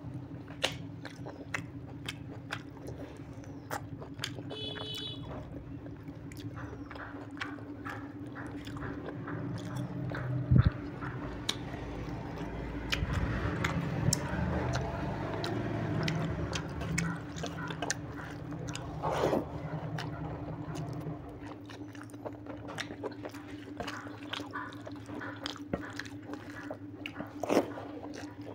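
Close-miked chewing and wet lip-smacking as a man eats rice and mutton curry by hand, with many short clicks throughout. A steady low hum runs underneath, and there is one sharp knock about ten seconds in.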